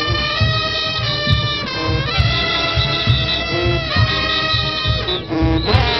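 A street brass band of trumpets, trombones and sousaphones playing loud, long held chords that change every second or two over a steady low beat.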